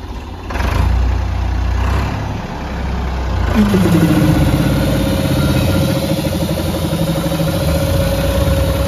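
Ford 3600 tractor's three-cylinder diesel engine running, getting louder about half a second in. About three and a half seconds in, the PTO-driven air compressor of the sandblasting machine is engaged: a new pitched drone sags briefly as the engine takes the load, then holds steady with a whine above it.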